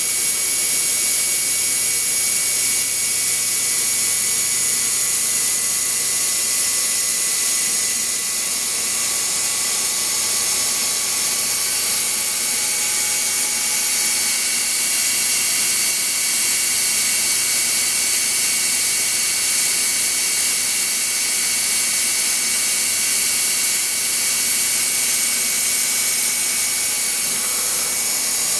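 Star SA-16R CNC Swiss-type sliding-headstock lathe running: a steady whine of several high-pitched tones over a hiss, unchanging throughout.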